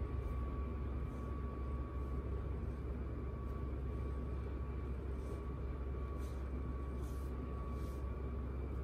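Steady low room hum with a faint thin whine over it, and a few soft brushing strokes of hands kneading and stretching a bare arm in the second half.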